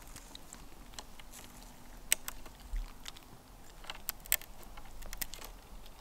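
A small dog chewing and gnawing a wooden stick: irregular sharp cracks and crunches of wood between its teeth, the loudest a little after two seconds in and again around four seconds in.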